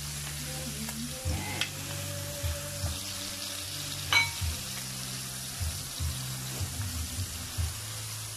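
Chicken pieces frying in a pan with a steady sizzle as peanut butter is stirred in with a wooden spatula, with two sharp knocks about one and a half and four seconds in, the second the louder.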